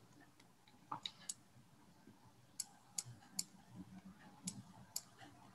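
Near silence broken by a handful of faint, short clicks at irregular intervals.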